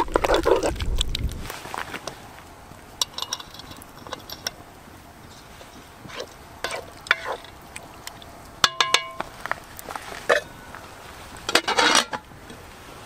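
Wooden spatula stirring meat and onions in a cast-iron cauldron: a wet squelching at first, then scattered knocks and clinks against the pot, with one ringing metal clank near the middle. Near the end the metal lid is set on the pot with a clatter.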